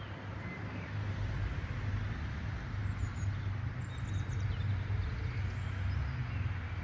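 Outdoor ambience: a steady low rumble with a few faint, high bird chirps about three and four seconds in.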